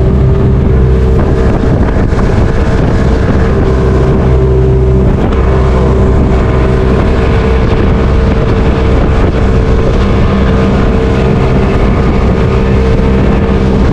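Motorboat engine running steadily at cruising speed under way across open water, a loud even drone with no change in pace.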